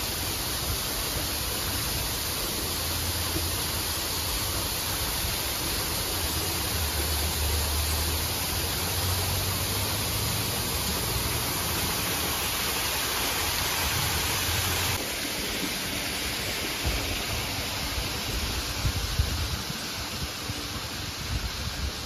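A small artificial waterfall splashing into a pond gives a steady rushing hiss. It drops a little in level about fifteen seconds in.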